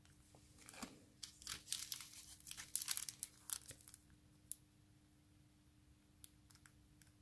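Small clear plastic component bags crinkling and rustling as they are handled, in irregular crackles for about four seconds, then only a few faint ticks.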